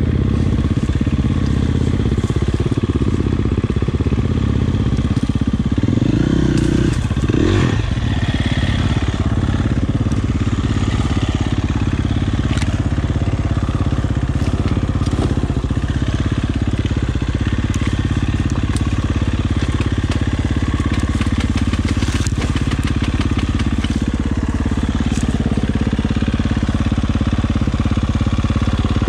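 Enduro dirt bike engine running steadily under load off-road, with the revs swinging up and down about six to eight seconds in and a few sharp knocks along the way.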